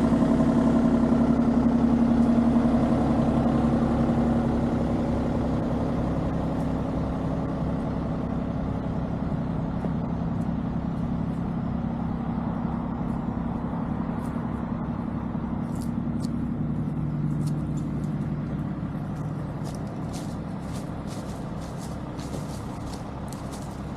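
A diesel engine running steadily and slowly fading away, with faint light clicks in the last several seconds.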